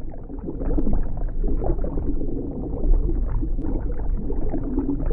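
Air bubbles rising underwater: a steady, dense, low gurgling rumble.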